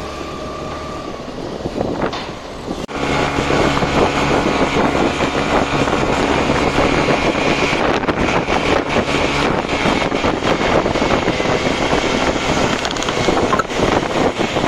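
Motorcycle riding on the road: the engine running steadily under wind noise on the microphone. About three seconds in the sound jumps suddenly louder and stays loud.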